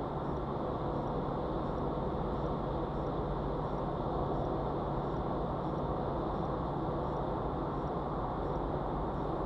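Steady road and engine noise of a car driving at motorway speed, heard from inside the cabin.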